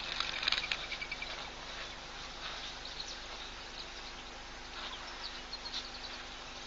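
Insects and birds chirping in the background, with a quick flurry of high chirps just after the start and a few more near the end.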